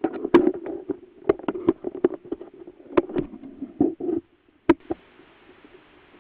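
Handling noise on a Maginon WK4HD trail camera's own microphone as it is set up: a quick, irregular run of clicks, knocks and rubbing that stops about four seconds in. After one last click comes a faint, steady hiss with a few soft rustles.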